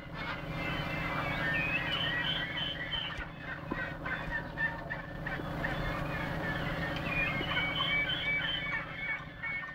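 Many birds calling over one another in a dense, continuous chorus of short chirping notes, over a low steady hum.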